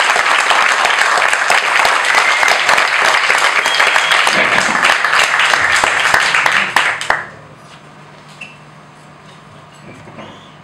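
Theatre audience applauding, a dense clatter of clapping that stops abruptly about seven seconds in, leaving a faint low steady hum.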